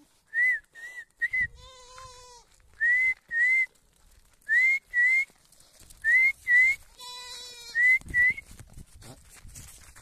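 Short rising whistle notes, mostly in pairs, repeated every second or so. A Sojat goat bleats twice, about a second and a half in and again around seven seconds.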